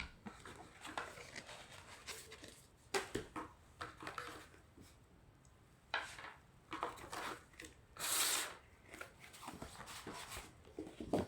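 Board game box and its cardboard and paper components being handled: irregular rustling, sliding and light tapping, with one longer rustle about eight seconds in.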